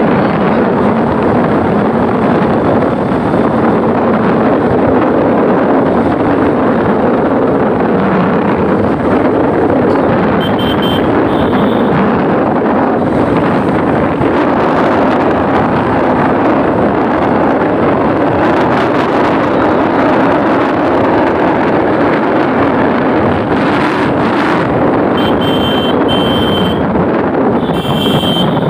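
Steady wind rush on the microphone of a moving motorbike, over its running engine. Short high beeps come twice, near the middle and again near the end.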